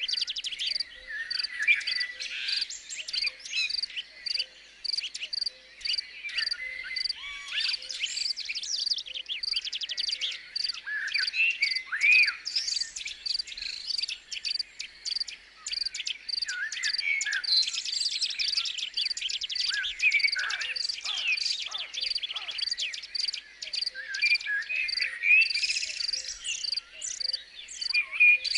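Outdoor nature ambience: several birds singing and calling in short warbles and chirps over an insect's steady chirp repeated about twice a second.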